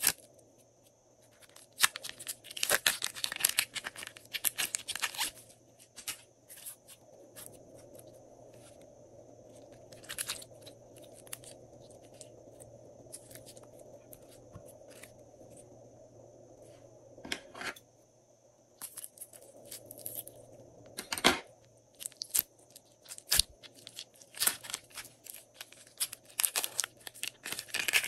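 Plastic piping bags of glossy slime crinkling and tearing as they are opened by hand, with the slime squishing and clicking as it is squeezed out and stretched. The crackling comes in a few spells, loudest early and near the end, with quieter handling in the middle.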